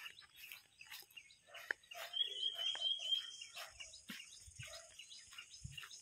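Faint chirps of birds, with one high, even trill about two seconds in that lasts just over a second.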